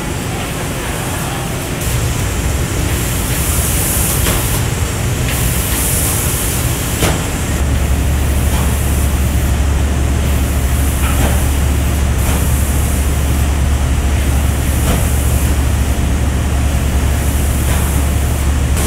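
Superfici Mini automatic spray finishing machine running: a steady low hum of motors and air extraction under a high, airy hiss. The hiss swells twice in the first seven seconds, and the hum grows louder about seven seconds in.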